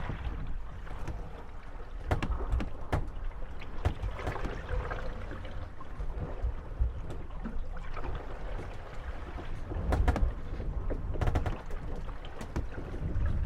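Moored wooden gondolas rocking in small waves, creaking and knocking irregularly against each other and their moorings over the wash of lapping water.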